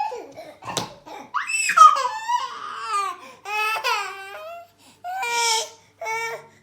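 A toddler crying and whining in high-pitched wails, several short cries in a row, with a brief knock just under a second in.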